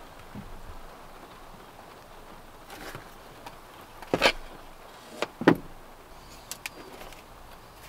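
A few sharp knocks and clicks, the loudest about four and five and a half seconds in, over a steady low hiss.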